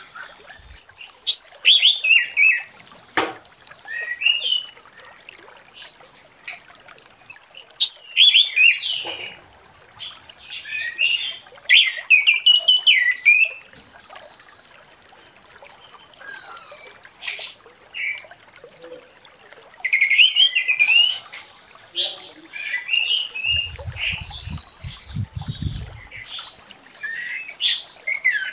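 Orange-headed thrush in full song: bursts of quick, varied whistled phrases and trills, separated by short pauses.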